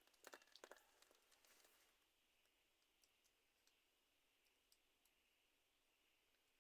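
Near silence, with a few faint clicks in the first second and scattered ticks after.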